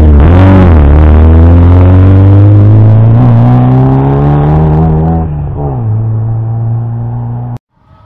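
Historic Opel rally car accelerating hard away under full throttle. After a brief dip the engine note climbs steadily, then drops at an upshift about five seconds in and fades as the car pulls away. The sound cuts off suddenly near the end.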